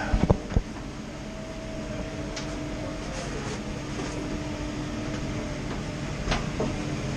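Steady low rumble with a constant hum of a running vehicle, with a few knocks in the first second and a sharp click about six seconds in.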